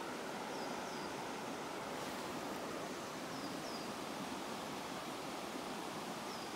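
Shallow river running over stones: a steady rush of water. A faint high double chirp comes about every three seconds.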